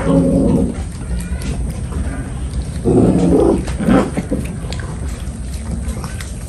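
Puppies growling over cartilage bones: a growl at the start, then a longer one about three seconds in and a short one just after, with small clicks of gnawing between.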